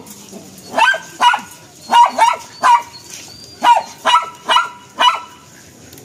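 A dog barking in short, high-pitched barks, in quick runs of two to four, about ten in all.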